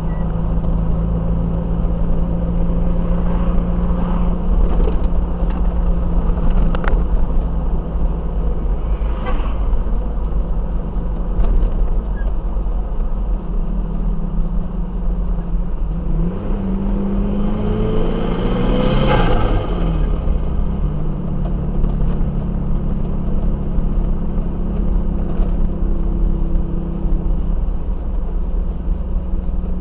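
Turbocharged Toyota Hilux engine idling steadily, revved up once about two-thirds of the way through, its pitch rising then falling, with a short rushing turbo flutter at the top because no blow-off valve is fitted. A couple of shorter rushes sound earlier.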